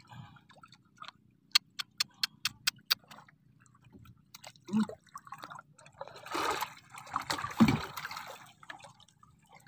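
Seawater splashing and lapping against the side of a small boat, swelling twice in the second half. Early on there is a quick run of about seven sharp clicks, about five a second.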